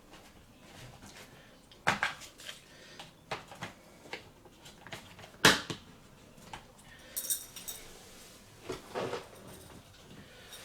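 Hard plastic toy arena pieces being handled and fitted together: a scattered series of sharp clicks and knocks, the loudest about five and a half seconds in, with some lighter rattling later on.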